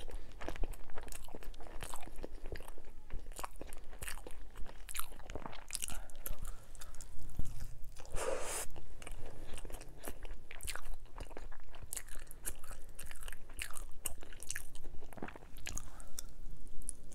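A person chewing and biting sopes (fried masa cakes with toppings) close to the microphone: many small mouth clicks and chewing noises throughout, with one louder bite about eight seconds in.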